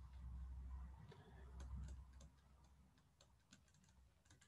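Faint clicks of a stylus tapping on a drawing tablet while handwriting, scattered irregularly, over a low rumble that fades out about two seconds in.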